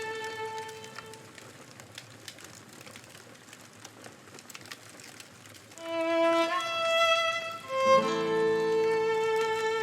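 Slow violin music with long held notes, and lower strings joining in near the end. In a pause of a few seconds between phrases, faint campfire crackling comes through.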